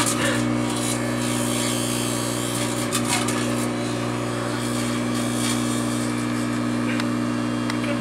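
Microwave oven running with a steady electrical hum while plasma from a halved grape arcs inside it. A hissing crackle fills the first second, and short crackles follow about three and five and a half seconds in.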